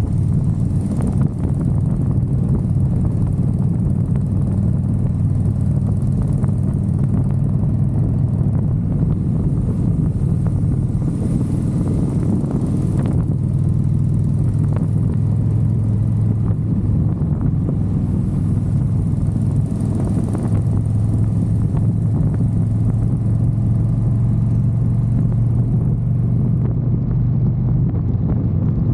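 Motorcycle engine running steadily at cruising speed while riding, its low hum holding an even pitch, with wind rumbling over the microphone.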